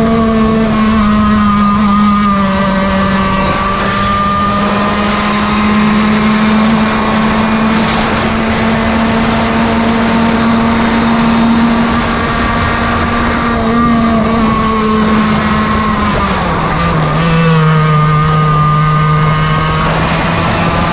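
Yamaha KT100 two-stroke kart engine running at high revs under racing throttle. Its steady high note dips briefly about a second in, drops lower at about sixteen seconds, and climbs again near the end.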